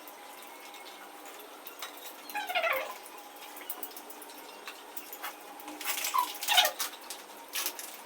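Faint sounds of people eating at a table: small clicks and scrapes, with two slightly louder brief sounds, one about two and a half seconds in and one about six seconds in.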